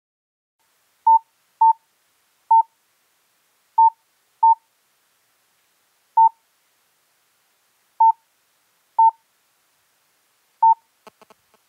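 Nine short, identical electronic beeps of one pitch, spaced irregularly like key presses, then a quick run of faint clicks near the end.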